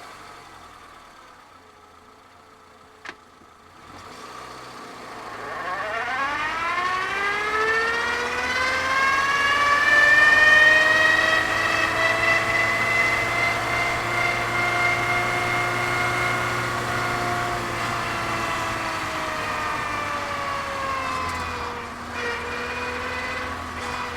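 Citroën Saxo in reverse gear: the reverse gears whine, rising steeply in pitch as the car picks up speed, holding high and steady, then falling away near the end as it slows. A faint click comes about three seconds in, before the whine starts.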